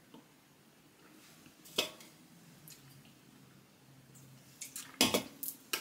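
A person drinking from a soda can: a sharp tap about two seconds in, then a run of short gulping and mouth sounds near the end.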